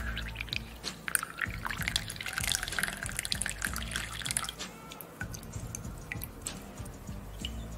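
Water poured into a paper filter in a wire dripper, splashing and trickling for about four and a half seconds, then only scattered single drips falling into the water in the glass beaker below.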